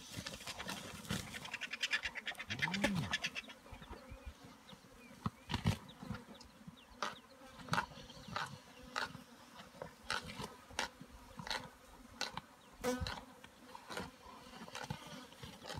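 Flies buzzing around a giraffe carcass. About three seconds in there is a low growl that rises and falls, from the spotted hyenas feeding on it. Through the second half come sharp short cracks, roughly one or two a second.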